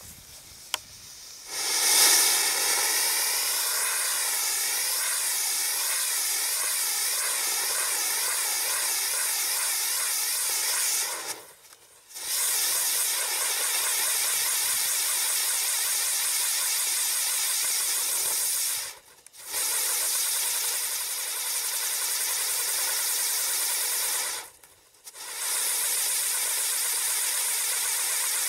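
Bright Star Galaxy Spray Catherine wheel firework: after a couple of faint clicks it catches about a second and a half in and spins with a loud, steady hiss that wavers in a regular rhythm as it turns. The hiss cuts out briefly three times, as one stage burns out and the next catches.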